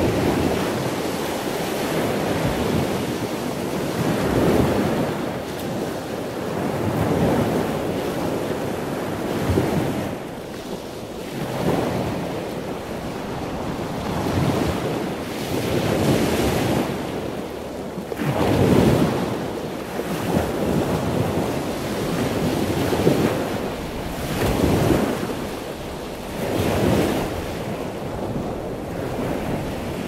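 Ocean surf: a continuous rushing wash of breaking waves that swells and falls every two to three seconds.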